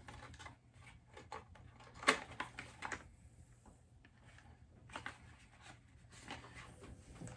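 Light handling noises from a small product package being turned over in the hands: scattered soft clicks and rustles, one sharper tap about two seconds in, over a faint low steady hum.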